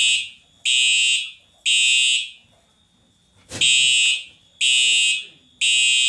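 Simplex TrueAlert 4906-9126 fire alarm horn sounding loudly in the temporal-3 evacuation pattern: a partial group of three blasts, a pause of about a second and a half, then three more blasts, each about half a second long.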